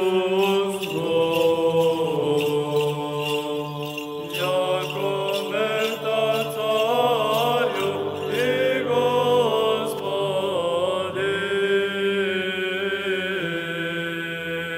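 Orthodox church chant: voices sing a slow, ornamented melody over a steady low held note, the drone (ison) of Byzantine-style chant.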